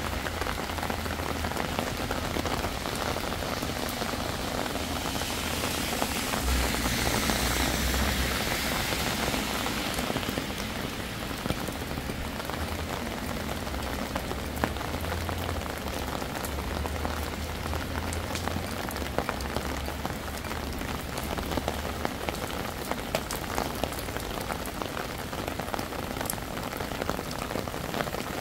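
Heavy rain falling steadily and pattering on surfaces, with scattered sharper drop ticks. The hiss swells for a few seconds about a third of the way in, then settles.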